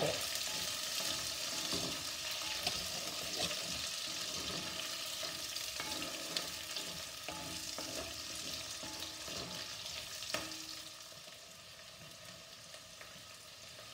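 Chopped onions and shallots sizzling in hot oil, being sautéed toward light brown, stirred with a wooden spatula that scrapes and now and then knocks against the heavy pan. The stirring stops near the end and the sizzle grows quieter.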